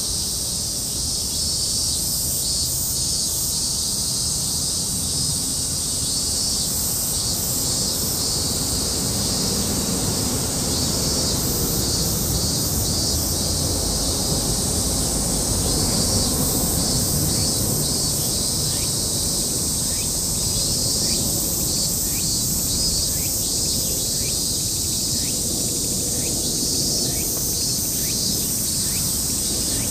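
Outdoor insect chorus: a steady high-pitched trill with groups of repeated chirps, over a low steady rumble.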